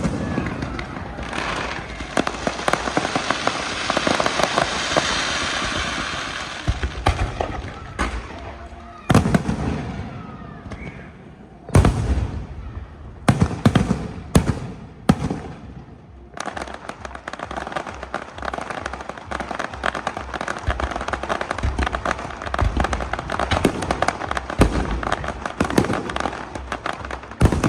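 Fireworks going off: a dense crackling for several seconds, then a string of separate sharp bangs about halfway in, followed by steady crackling with thumps mixed in.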